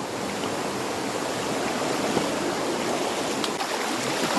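Small waterfall and its stream: water pouring and rushing steadily.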